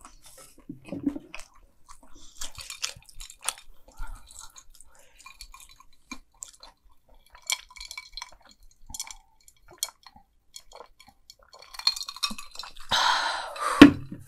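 Close-up chewing of crunchy deep-fried mac and cheese balls, heard as scattered small crackles and mouth clicks. Near the end a louder burst of rustling noise ends in a sharp knock.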